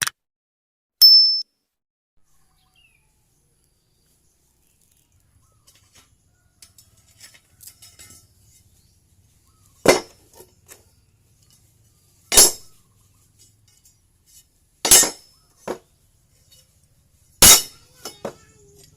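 A short high ding about a second in. Then, after a pause, four sharp clinks of hard objects about two and a half seconds apart, with smaller knocks between them.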